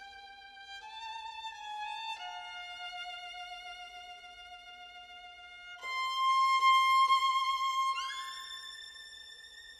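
Violin playing a slow line of long, high held notes with vibrato, becoming loud about six seconds in and easing off towards the end.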